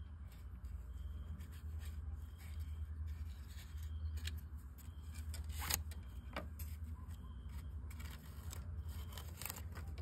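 Close handling noise as a cord is wrapped and pulled tight around wooden battens: rustling and scraping of rope on wood, with small clicks and knocks. One sharper click comes a little past halfway. A steady low hum lies underneath.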